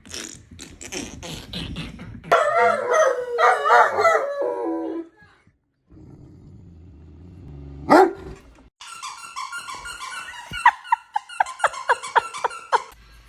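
Great Dane vocalizing: a few seconds of loud, pitched, drawn-out sounds starting about two seconds in. They are set among clicks and clatter, with a sharp hit later and a fast run of clicks near the end.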